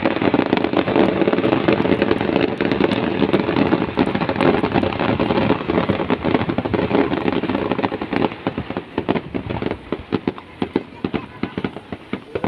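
Fireworks display: a dense, continuous crackle of bangs and pops that thins out about two-thirds of the way through into separate sharp cracks.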